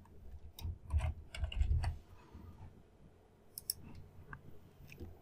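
Typing on a computer keyboard: a short run of keystrokes in the first two seconds, then a few separate clicks.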